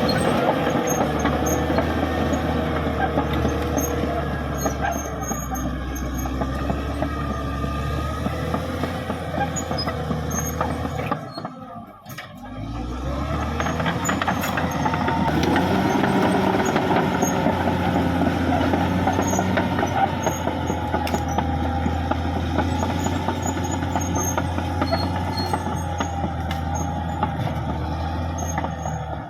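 Caterpillar D6R XL bulldozer working, its diesel engine running steadily, with a brief drop in sound about twelve seconds in before it picks up again.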